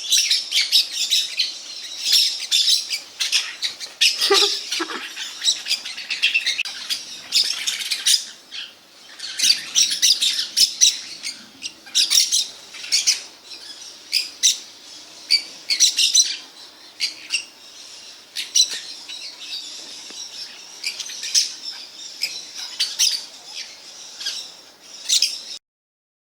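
A flock of maritacas (small parrots/parakeets) screeching, with many harsh, overlapping calls in quick succession, cutting off abruptly near the end.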